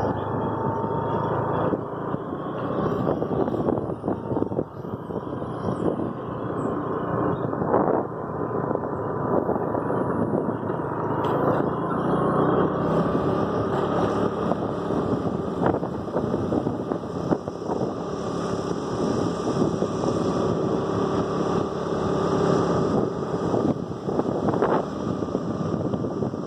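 A two-wheeler's engine running steadily at riding speed, mixed with the rush of wind and road noise as it moves along.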